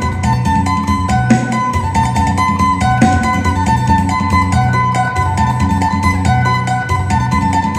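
Isan phin (Thai plucked lute) playing a fast lam sing melody: rapid picked notes, with a low bass part moving beneath.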